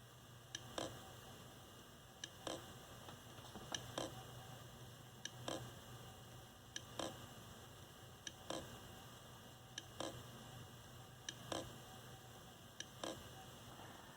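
Failing hard drive in a USB external enclosure, clicking faintly and repeatedly: a quick double click about every one and a half seconds. The drive no longer gets recognised by the computer.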